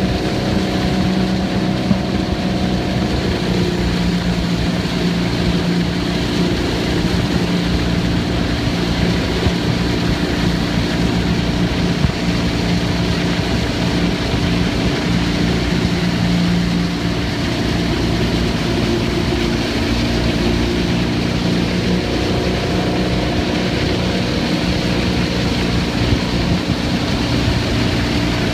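Motorboat engine running steadily at towing speed, with the rush of spray from a barefoot skier's feet planing on the water.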